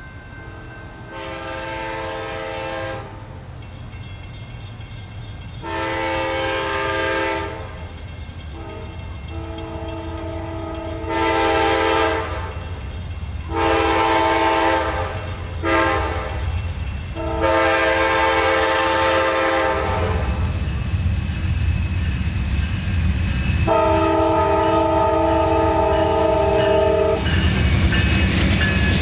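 Amtrak Auto Train's GE P42DC Genesis diesel locomotives sounding their several-note horn in a series of long and short blasts as the train approaches: the grade-crossing signal, repeated for successive crossings. The locomotives' diesel rumble grows louder over the last several seconds as they arrive and pass.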